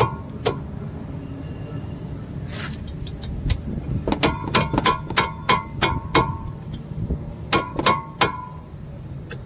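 Sharp metallic clicks of a spanner working a brake caliper's slide-pin bolt, undoing it to replace the worn caliper pins. There is a quick run of clicks about four seconds in and a few more near the end, over a steady low hum.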